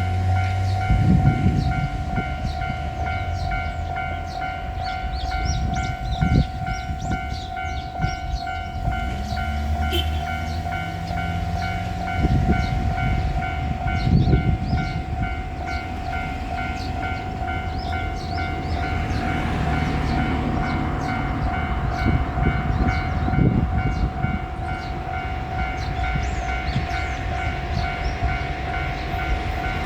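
Level crossing alarm ringing steadily with a repeating electronic tone while a diesel railcar passes. The railcar's engine runs low underneath, and its wheels knock over the rail joints in clusters.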